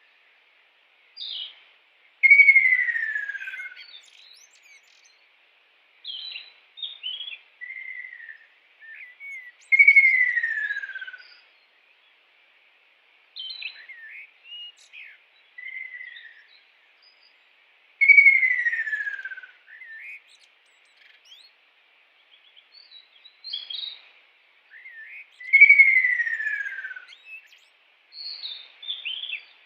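Kingfisher calling: a loud, drawn-out call that falls in pitch over about a second and a half, given four times roughly every eight seconds, with shorter chirps and whistles in between. A steady hum of insects runs behind.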